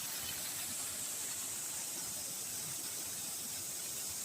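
A steady, high-pitched hiss with no distinct events.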